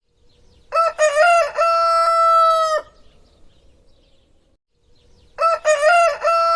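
Rooster crowing twice: each crow opens with a few short broken notes and ends on one long held note, the second starting near the end.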